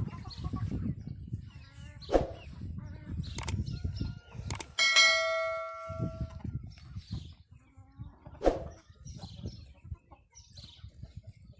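Wyandotte chickens clucking. About five seconds in, a sharp knock sets off a metallic ringing tone that fades out over about a second and a half, and a few more sharp knocks come at other moments.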